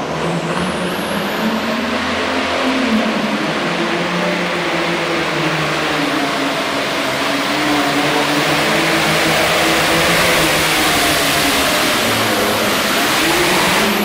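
Turbocharged diesel engine of an International Harvester Super Farm pulling tractor running flat out under full load as it drags the pulling sled. A high turbo whistle climbs in the first couple of seconds and falls away at the very end as the pull finishes.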